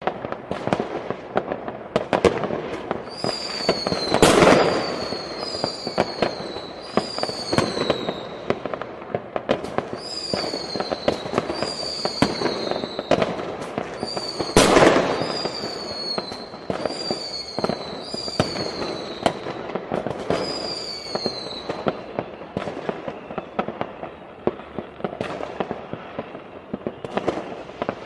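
Fireworks going off all over a town: a dense run of sharp bangs and crackles, the two loudest bursts about four and fifteen seconds in. Through the middle, a string of short whistles, each falling in pitch, comes about once a second.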